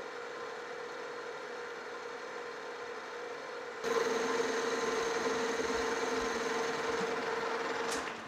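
Metal lathe running and taking a turning pass on a shaft with a freshly changed cutting insert, which is cutting much better. A steady hum with one clear tone, which becomes louder and brighter about four seconds in and drops away just before the end.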